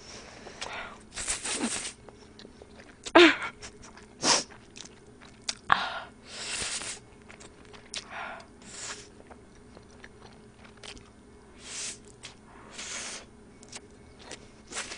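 Close-up eating sounds of a person slurping and chewing spicy stir-fried instant ramen (Buldak bokkeum-myeon): several hissing slurps of noodles half a second to a second long, with mouth smacks and a few sharp clicks, the loudest about three and four seconds in.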